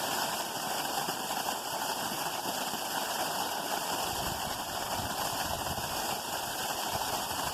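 Creek water running steadily, with some low rumbling from about four seconds in.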